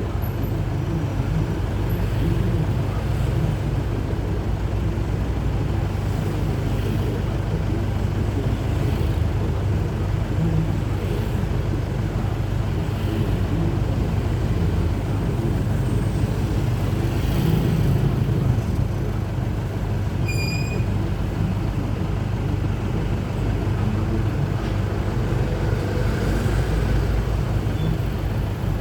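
Truck engine running steadily, heard from inside the cab, with a low rumble of road and traffic noise. A brief high beep sounds about two-thirds of the way through.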